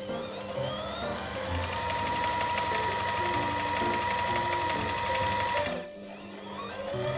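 Brother LICIA (ZZ3-B583) electric sewing machine running: its motor whine rises as it speeds up, holds steady for about four seconds, stops abruptly, then starts and speeds up again near the end.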